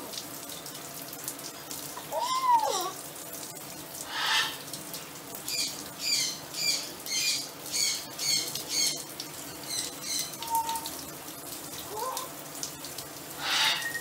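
Shower water spraying steadily onto a macaw on its perch. The macaw gives short harsh squawks about 4 seconds in and again near the end, with a run of quick high calls in between.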